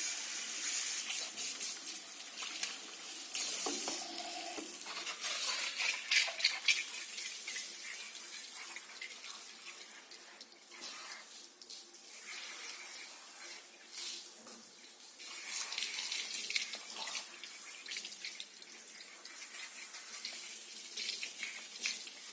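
Handheld shower sprayer running water over a wet dog in a grooming tub, hissing and splashing unevenly, softer for a few seconds in the middle.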